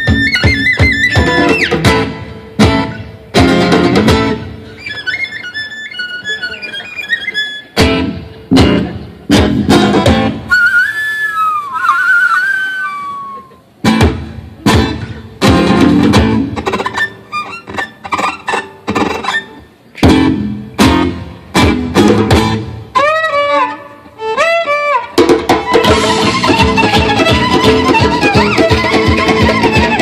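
Live band playing a fast Romanian gypsy-style tune: violin leading over acoustic guitar and percussion, with sharp stop-start accents. Twice the violin breaks into high sliding, chirping glides that imitate birdsong, once about ten seconds in and again as a quick run of swoops about twenty-three seconds in.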